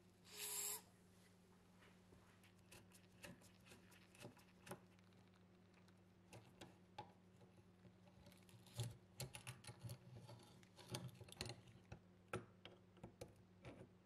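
A short hiss of aerosol spray through a straw onto a rusty nut about half a second in. After that come small metal clicks and taps as the rusty lighter mechanism is handled and pliers grip a screw. The clicks come thickest in the last few seconds.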